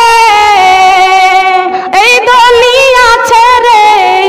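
A woman singing a Bengali gojol, an Islamic devotional song, stretching a line into long wavering held notes with no clear words; a new phrase starts about two seconds in.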